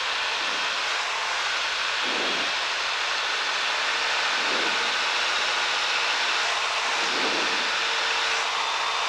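Cessna 172's piston engine and propeller running steadily with rushing airflow, heard inside the cockpit; a low swell comes and goes about every two and a half seconds.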